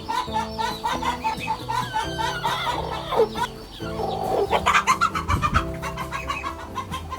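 Chickens clucking and calling over background music with a steady beat.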